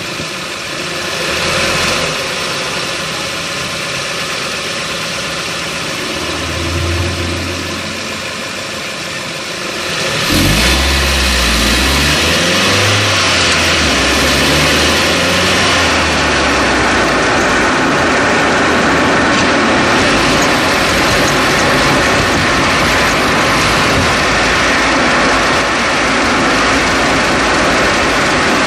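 Road and wind noise of a 2011 Chevrolet Cruze on the move, picked up at the front passenger-side wheel well, with low rumbles from the suspension and tyre; it gets suddenly louder about ten seconds in and stays that way.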